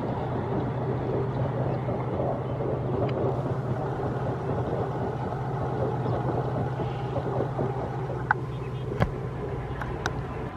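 Diesel locomotive hauling a passenger train, heard from a distance: a steady low engine drone, with three sharp clicks in the last few seconds.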